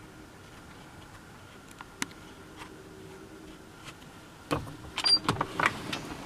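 Low background hum with a few faint clicks, then a run of sharp clicks and knocks from about four and a half seconds in, loudest around five seconds, with a brief squeak: a glass door's lever handle and latch being worked as the door is opened.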